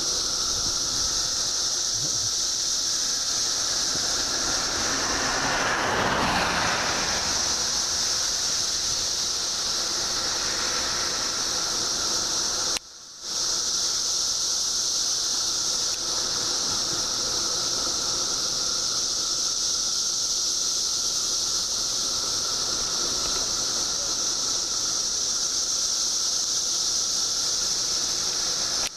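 A chorus of cicadas buzzing together in a loud, steady, high-pitched drone, extremely loud. A broader rush of lower noise swells and fades about six seconds in, and the sound cuts out for a split second about halfway through.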